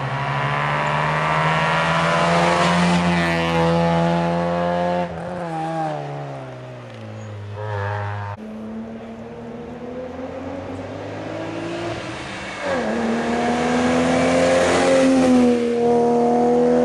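Rally cars at full throttle on a night special stage: one engine revs hard through gear changes and passes in the first five seconds and fades, then a second car approaches, its engine climbing through the gears and loudest near the end.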